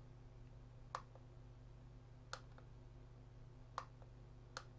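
Four faint, sharp clicks from a GQ GMC-300E Geiger counter as it is handled and its menu buttons pressed, over a faint steady low hum.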